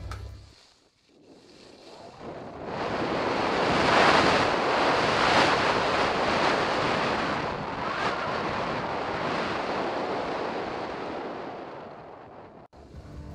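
Wind rushing over the microphone of a camera carried on a fast downhill ski run, with the hiss of skis sliding on packed snow. It builds over the first few seconds, holds, then fades and cuts off abruptly just before the end.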